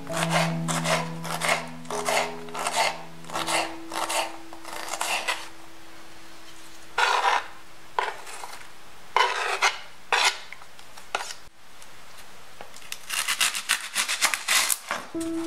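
A kitchen knife chopping a jalapeño on a bamboo cutting board, the blade hitting the board about twice a second. After a pause come a few separate cuts, then a quick run of cuts near the end as the knife goes into a red onion.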